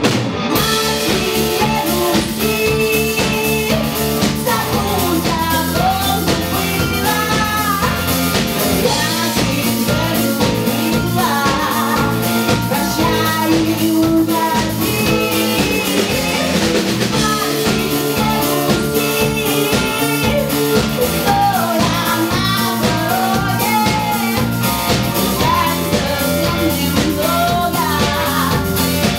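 Live band playing a pop-rock song: drum kit keeping a steady beat, bass guitar, electric guitar and keyboards, with a woman singing lead.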